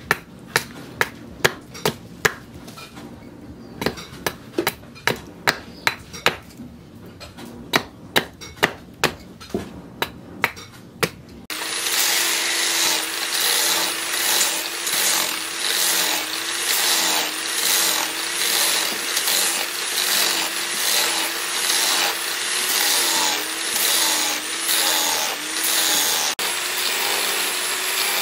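Sharp knocks of a blade chopping into a wooden handle blank on a wooden block, about two a second with a short pause. About eleven seconds in, an electric angle grinder with a sanding disc starts and runs steadily, its whine wavering as it is pressed in strokes against the wooden handle to sand it to shape.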